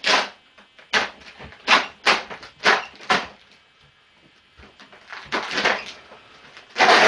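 Gaffer tape being pulled off in short rips: six quick ones in the first three seconds, a longer rip about five and a half seconds in, and the loudest one near the end.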